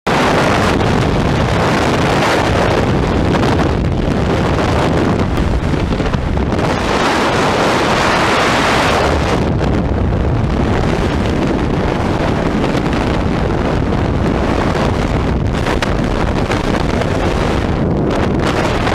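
Loud, steady wind noise of freefall rushing over and buffeting a helmet-mounted camera's microphone.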